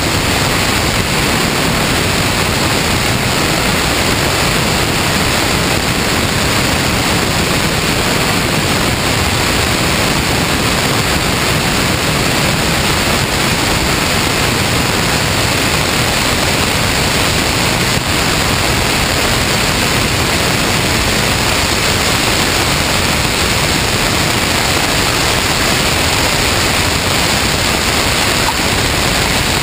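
Steady rushing wind noise from the airflow over a wing-mounted camera on a Cessna 162 Skycatcher in flight, unbroken as the plane comes down to the runway.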